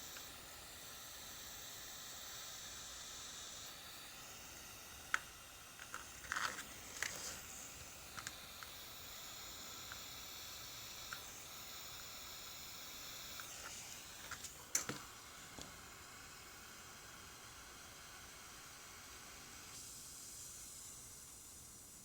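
Faint steady hiss with a handful of small, sharp clicks and taps scattered through it, the loudest about five seconds and fifteen seconds in.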